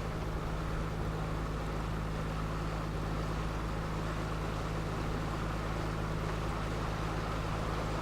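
A motorboat's engine running steadily under way, a constant low drone, with water and wind rushing past.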